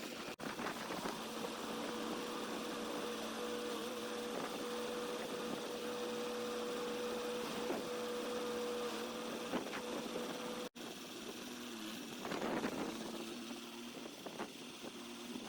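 An engine running steadily with a constant hum, over wind noise. The sound breaks off briefly about eleven seconds in.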